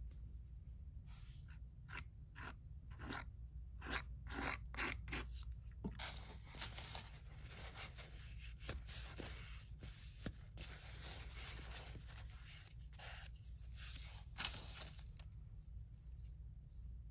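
A plastic scraper dragged in short repeated strokes across a paint-covered tile, scraping through wet acrylic paint, then a paper towel rubbing and crinkling as the paint is wiped off, with a few more scrapes near the end.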